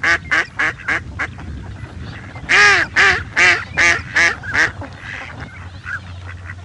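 Goose honking: a rapid series of short nasal honks, about three a second. A louder bout comes about two and a half seconds in, and a few fainter honks follow near the end.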